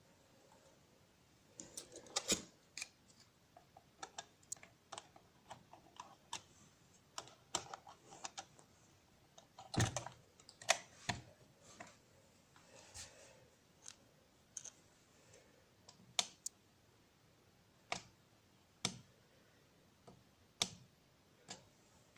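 Buttons of an alarm clock radio being pressed and the set handled: irregular small clicks, a few a second, with several sharper knocks among them.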